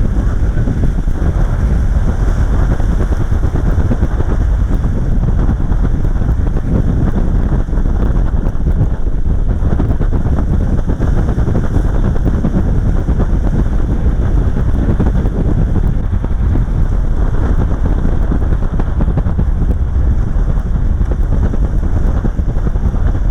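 Falcon 9 rocket's nine Merlin engines at launch: a steady, loud, deep rumble with continuous crackling.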